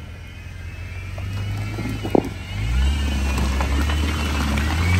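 Jeep Wrangler's engine running as it drives an off-road trail, its note dropping and growing louder about two and a half seconds in as it takes more load. A single sharp knock comes just before.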